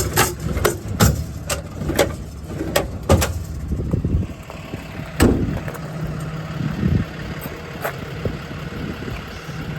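Metal service-body drawers being pulled open and pushed shut: a run of sharp clicks and clunks, with a louder knock about five seconds in. A diesel engine idles underneath.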